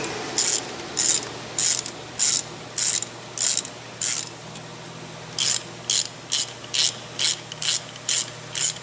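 Hand ratchet clicking in short strokes as a spark plug socket is turned slowly by hand, with a pause about four seconds in and quicker strokes after it. The plug is going in stiffly in a hole whose first thread the technician believes is damaged.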